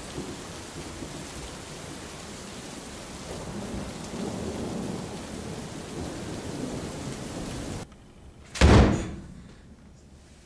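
Steady hiss of a rain sound effect with low rumbling swells, cut off abruptly near the end. About a second later comes one loud boom that dies away.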